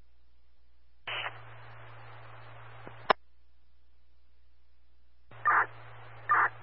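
Police radio channel keyed open with no voice: a hiss of static over a steady low hum, opening with a short burst of noise about a second in and cutting off with a sharp click about two seconds later. Near the end the channel keys up again, with two short bursts of static.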